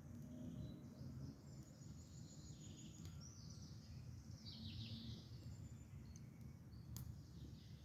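Faint birdsong, several chirps and a short trill, over a low steady rumble, with a sharp crackle from a wood fire near the end.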